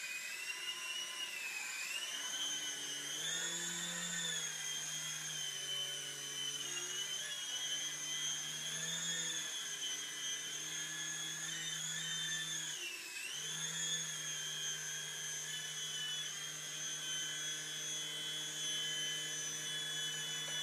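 Small remote-control toy helicopter's electric motors whining and rotors whirring as it lifts off and flies. The pitch rises at the start and wavers up and down with the throttle, with a short dip about two-thirds of the way in.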